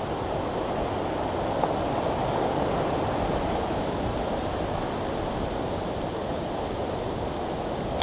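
Steady rushing noise with no clear rhythm, with a faint click about one and a half seconds in.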